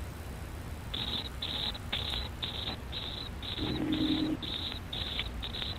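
Short high chirps repeating about twice a second over a steady low hum in the narrow-band crew capsule audio, with a brief low steady tone near the middle.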